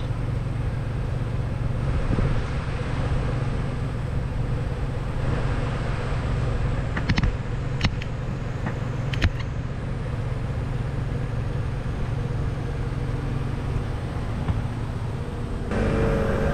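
Street traffic: cars running along a city road, with a few sharp clicks about seven to nine seconds in and a louder vehicle engine coming in near the end.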